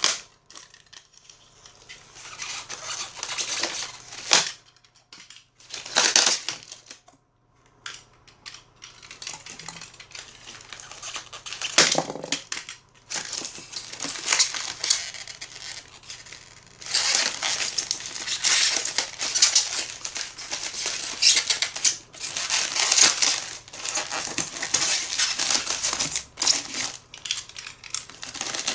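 Packing material being handled, crinkling and rustling in irregular stretches with short pauses: plastic wrap and packaging being pulled off a new amplifier.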